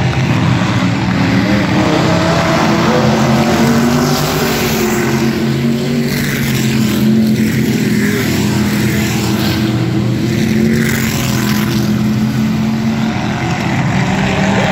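Engines of several vintage-class dirt-track race cars running together on the track: a loud, continuous drone that holds a fairly steady pitch.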